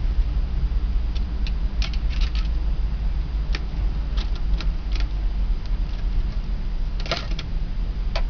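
Scattered sharp clicks and crackles, single and in small clusters with a louder cluster near the end, of a wicker basket as a kitten shifts and paws about in it. A steady low hum sits underneath.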